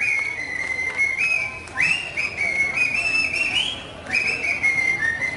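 A man whistling a tune into his cupped hands as a solo: high, clear held notes that step up and down in pitch.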